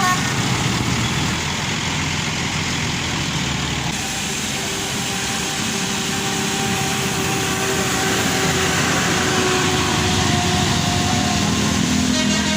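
Bus engine running amid steady road traffic noise, with a faint held tone near the middle.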